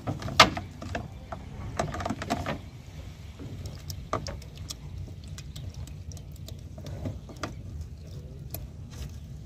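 Cast net being handled and untangled by hand over a plastic bucket: irregular clicks and knocks of the net's weighted edge and a small tool against the bucket and boat, busiest in the first two and a half seconds with one sharp click about half a second in, then sparser ticks. A low steady rumble runs underneath.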